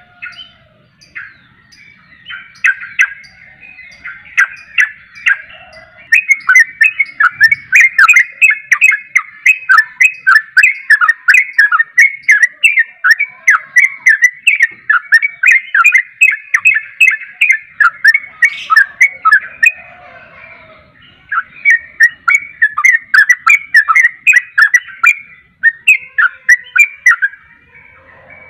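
Yellow-vented bulbul (trucuk) singing in rapid runs of short, repeated chattering notes, about four a second. After scattered phrases the runs become long and loud, with a brief break about two-thirds of the way through. This is the fast, continuous 'ropel' song of a bulbul in full song.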